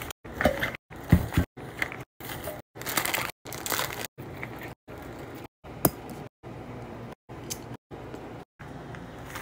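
Lunch-packing handling sounds: plastic wrappers and an insulated lunch bag crinkling and rustling, with a few sharp clicks, the loudest about six seconds in, all chopped by brief silent gaps every half second or so.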